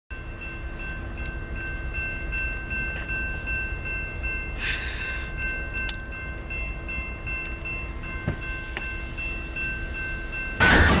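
Intermodal freight train of trailers on flatcars rolling past close by: a steady low rumble of wheels on the rails, with a faint steady high whine and a few single knocks. A sudden, much louder sound starts just before the end.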